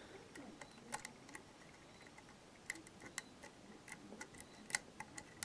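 Short-hook lock pick tapping and clicking against the pins inside a pin-tumbler lock as it is picked under tension: faint, irregular clicks, several a second at times. The lock has not yet reached a false set on its spool pins.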